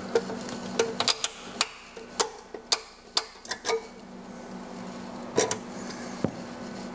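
Knockout in the bottom of a sheet-steel subpanel box being worked out with pliers: a string of sharp, irregular metallic clicks, thinning out over the last few seconds.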